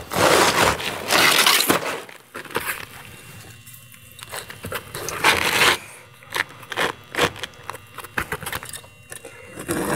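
An asphalt shingle being scraped and scored with a knife along a straight edge: a few loud, gritty scraping strokes, the longest in the first two seconds and another about five seconds in, then lighter clicks and rustles as the shingle is handled.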